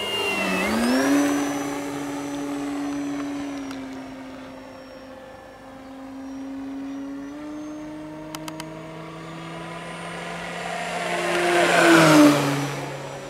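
Electric motor and propeller of a 2-metre E-flite Carbon-Z T-28 Trojan RC warbird flying past, a steady whine-like hum. The pitch drops just after the start as the plane passes. It then builds to its loudest about twelve seconds in and falls in pitch as the plane passes again.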